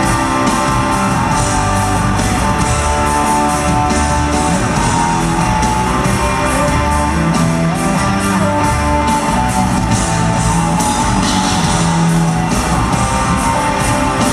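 Rock music with electric guitar and a steady beat, instrumental with no singing.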